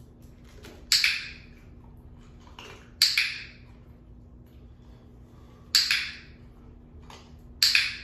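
Dog-training clicker clicked four times, about two seconds apart, each a sharp, crisp click marking the puppy standing on the board.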